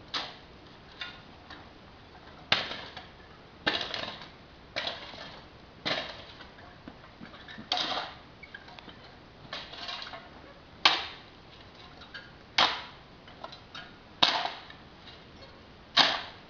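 A steel shovel blade stabbing and scraping into dry dirt. It repeats about ten times at irregular intervals of one to two seconds, each stroke a short crunch.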